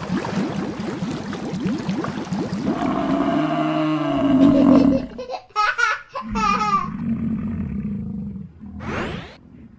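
Water buffalo bellowing, one long low call ending about five seconds in, following a bubbling water-splash sound effect. Short cartoon sound effects and a rising whoosh follow.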